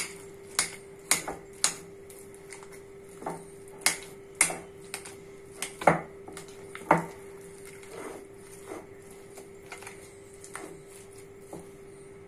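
Metal spoon clinking and scraping against a glass bowl as mashed potato chokha is stirred: irregular sharp taps, a few a second, over a steady faint hum.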